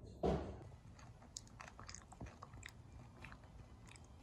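Popcorn crunching: scattered small crisp crunches, a few a second, after a brief low sound at the start.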